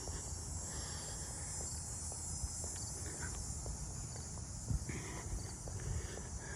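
Steady high-pitched insect chorus of crickets, over a low rumble of wind on the microphone, with a few soft footsteps on pavement.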